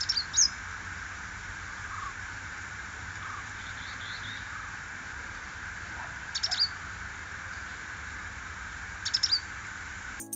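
Purple-rumped sunbird calling: brief, high, thin chirps in quick clusters, three clear groups plus a fainter one, over a steady background hiss.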